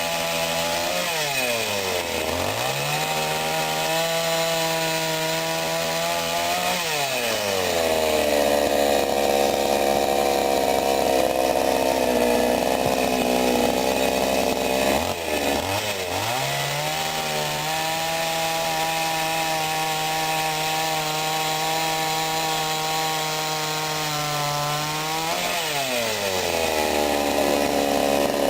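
Sadko GCS 510E two-stroke chainsaw running at high revs. The engine pitch drops and the sound grows louder as the chain bites into wood about seven seconds in and again near the end. The revs fall briefly midway, then climb back.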